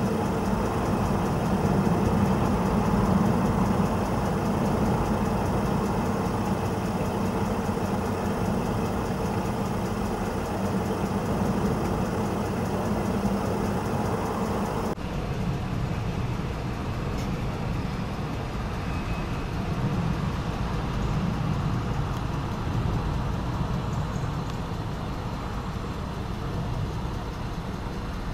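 Steady low rumble of road traffic and idling engines, with no clear single event; about halfway through the higher hiss drops away suddenly.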